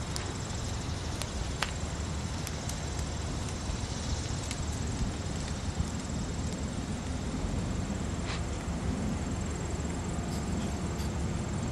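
Steady outdoor background noise, with scattered light clicks of footsteps from people walking on a paved path.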